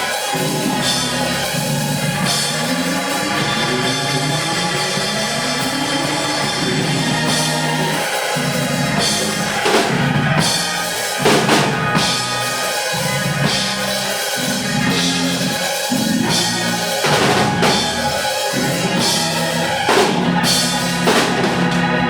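Church band music led by a drum kit, with a low bass line running up and down in steps and sharp drum and cymbal hits through the middle and near the end.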